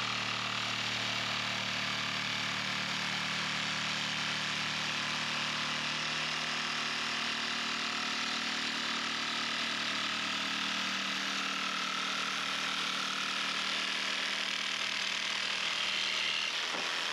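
Electric power saw cutting through a wooden boat plank, running steadily at an even pitch in one long continuous cut.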